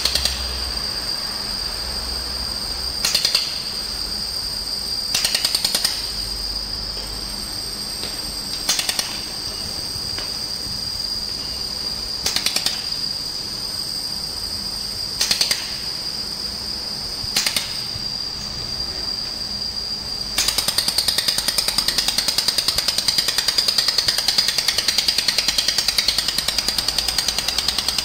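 Handheld laser welding torch firing in several short bursts of about half a second each, then from about two-thirds of the way through running continuously with a fast, even pulsing rattle. A steady high whine sits underneath.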